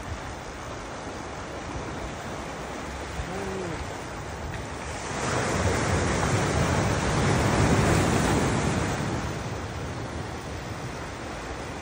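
Ocean surf washing on the shore: a steady wash, with a wave surging in about halfway through, louder for several seconds, then easing back.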